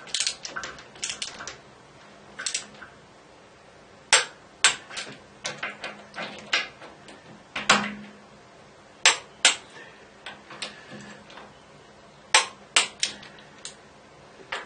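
Click-type torque wrench set to 40 newton metres tightening hex-socket bolts on a lathe bed, giving sharp metallic clicks at irregular intervals as each pull reaches torque, with quieter ticking between pulls.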